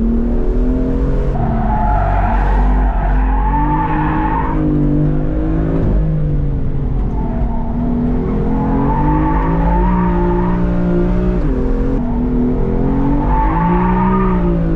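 BMW F83 M4's twin-turbo straight-six running hard on track, its pitch rising and falling with throttle and gear changes. Tyres squeal in about three spells as the car slides through corners.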